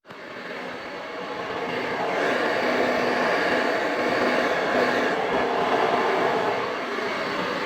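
Alpha Wave Pro blow dryer running: a steady rush of air over a motor hum, swelling over the first couple of seconds and then holding even.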